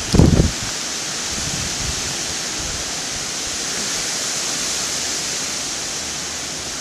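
Hurricane-force wind and heavy rain: a steady rushing hiss, with a brief low rumble of wind buffeting the microphone right at the start.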